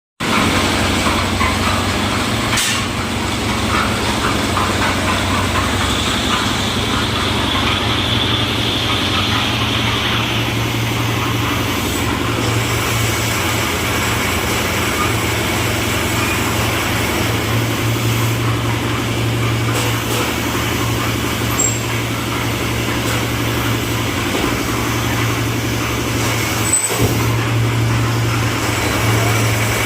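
Concrete mixer with lift hopper running: a steady, even engine drone with a strong low hum. It is broken by a sharp click about three seconds in and another near the end.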